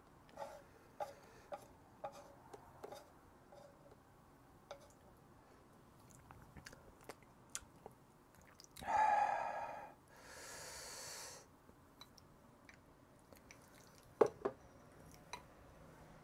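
Close-miked mouth sounds of someone eating: soft wet chewing clicks every half second or so at first. About nine seconds in comes a short pitched vocal sound, the loudest thing here, then a breathy exhale and a few more mouth clicks.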